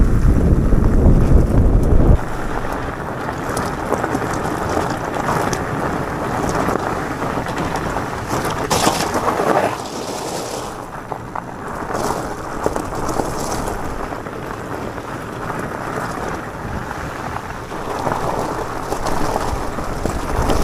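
Mountain bike tyres rolling over a gravel road, a steady crackling rush, with heavy wind rumble on the microphone that drops away abruptly about two seconds in.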